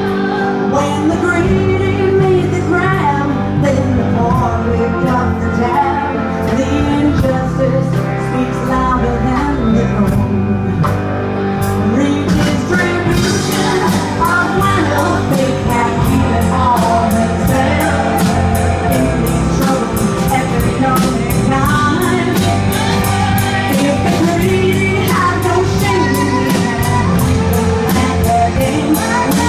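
Live punk rock band playing: electric guitars, bass and drums, with a woman singing into the microphone. The drum and cymbal hits grow denser about halfway through.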